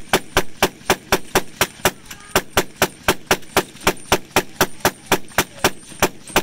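Hand-cranked Gatling gun firing a sustained burst: a steady, rapid run of sharp shots, about four a second.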